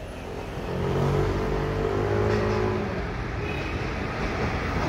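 Vehicle engine running and growing louder about a second in, then holding steady.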